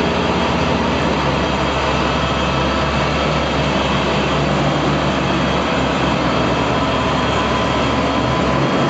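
Mercedes-Benz Unimog diesel engine running steadily under load, driving a grain roller mill, with the mill's steady grinding noise over the engine hum.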